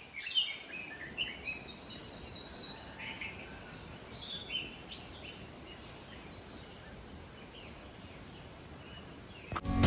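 Birds chirping and singing, a quick run of short calls and trills in the first few seconds that thins out to occasional chirps, over a faint steady background hiss.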